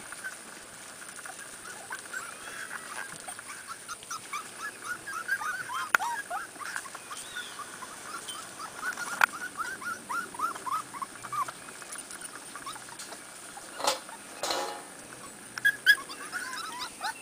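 Pembroke Welsh corgi puppies whimpering in a long string of short, high cries, coming several a second at times, with a couple of sharp knocks near the end.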